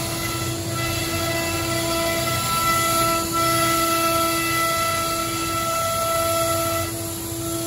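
Biesse Skill CNC router's spindle running with a steady high whine of several pitches over a hiss, while the machine head moves over the table. The whine eases a little near the end.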